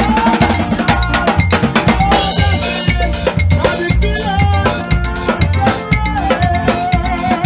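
A gospel band playing an up-tempo number: the drum kit keeps a steady beat of about two low drum strokes a second, with percussion on top and a melody line above it.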